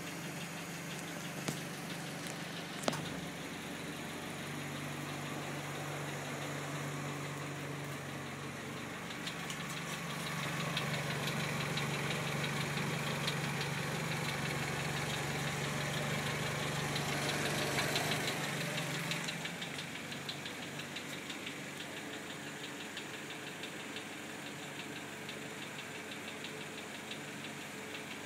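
Hyundai Genesis Coupe 2.0T's turbocharged four-cylinder engine idling with a loud, rapid clicking, which the owner puts down to the turbo and which began after its first oil change. The clicking grows louder for several seconds in the middle, and two sharp knocks come near the start.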